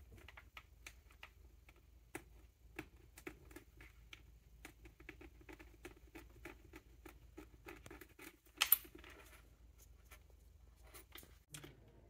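Faint, irregular small clicks and rustles of gloved fingers handling the thin inner wires of a cut-open USB-C cable, with one short, louder sound about nine seconds in.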